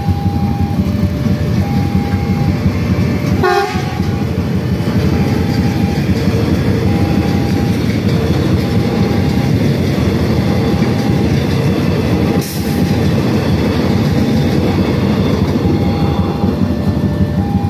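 Electric commuter train passing close by with a steady rumble of wheels on the rails. Over it, a level-crossing warning alarm alternates between two tones about once a second. A short horn blast sounds about three and a half seconds in.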